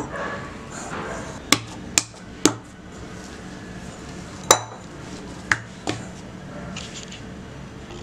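Bread dough being kneaded by hand in a glass mixing bowl, with about six sharp knocks and clinks against the glass. The one near the middle is the loudest and rings briefly.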